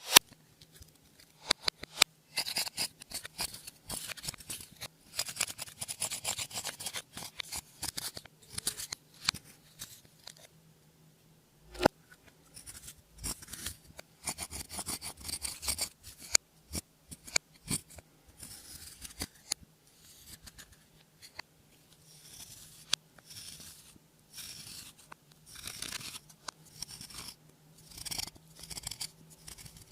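Slime being worked by hand, stretched, pressed and folded, giving bursts of sticky crackling and sharp clicks that come in clusters with short pauses between them.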